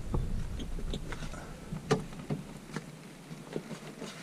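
Scattered light clicks and knocks, a few a second, from hand tools and hands working on the mounting of a camper van's built-in microwave cabinet. A low rumble underneath dies away about a second and a half in.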